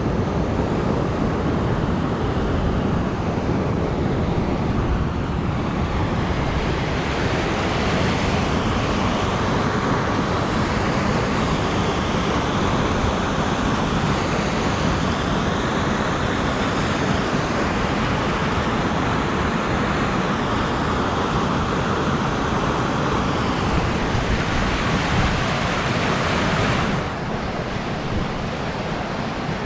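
Steady rushing of the Huron River spilling over a low weir, a continuous hiss of white water. About 27 s in the sound turns duller.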